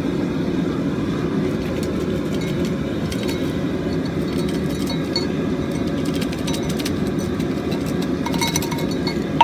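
Forge fire running with a steady low roar, with faint scattered metal clinks over it.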